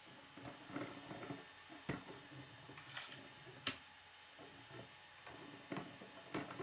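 K'nex plastic rods and connectors being handled and snapped together: several sharp plastic clicks, the loudest a little past halfway, with soft rattling and handling of the pieces between them.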